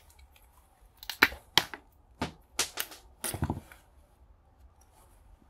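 Pliers prying small copper contacts off a switch: a quick run of sharp clicks and snaps from about one second in to about three and a half seconds in.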